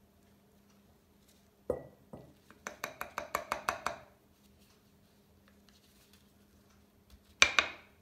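Light clinks and taps of a palette knife against a ceramic tile while acrylic paint is spread. There is one sharp tap, then a quick run of about ten light clicks, and a louder knock near the end.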